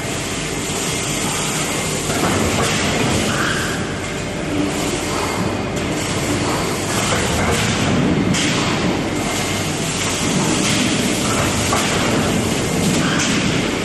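Loud, steady machinery noise from an automated hot-forging line, with a few faint knocks.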